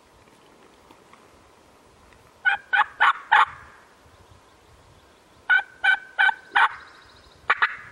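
Wild turkey yelping: three loud series of short, evenly spaced notes, four, then four, then two near the end.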